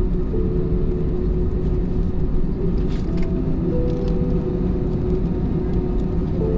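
Airbus A321 cabin noise while taxiing: a steady low rumble from the CFM56-5B engines at taxi thrust, with a few faint steady tones above it.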